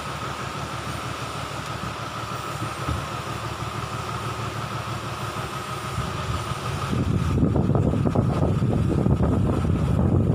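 A motor running steadily with a constant hum. About seven seconds in it gives way to a louder, rougher low rumble.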